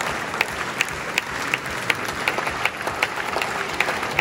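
Concert audience applauding in a large hall, a dense wash of clapping. One nearby pair of hands stands out in a steady beat of about two and a half claps a second.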